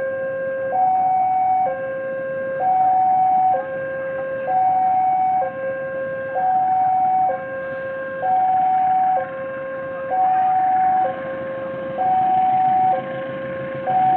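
Railway level-crossing warning alarm sounding for an approaching train: an electronic two-tone signal, a lower and a higher tone alternating, each held about a second, repeating without pause.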